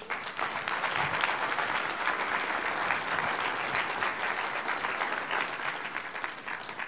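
Audience applauding: many people clapping together, thinning out near the end.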